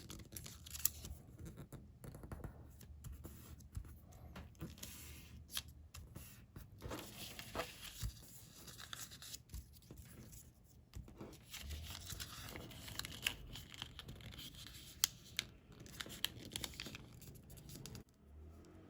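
Sheets of colored origami paper being handled, folded and creased by hand: irregular crinkling rustles and sharp crisp snaps. The paper sounds stop shortly before the end.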